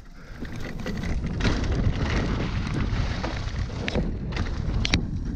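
Wind buffeting the microphone and the rumble of a mountain bike's tyres rolling fast down a dirt trail through fallen leaves, rising in the first second. Sharp rattles and knocks from the bike over bumps come near the end.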